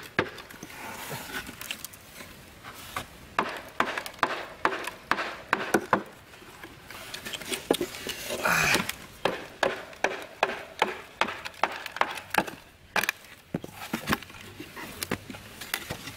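A hammer striking a wooden box trap: runs of sharp knocks, several blows a second, in a few bursts. About halfway there is a short scrape as the box is shifted.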